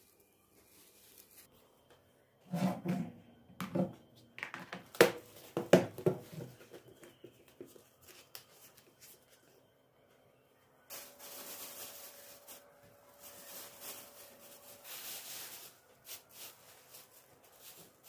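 A plastic food-storage container handled on a wooden table, giving a quick series of sharp knocks and clicks. After that comes a longer spell of thin plastic bags rustling and crinkling.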